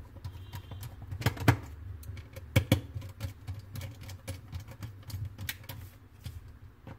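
Irregular small clicks and taps of a screwdriver and screws against the metal underside of a Dell Precision M6500 laptop as the hard-drive bay is fastened. A few louder clicks come about one and a half and two and a half seconds in.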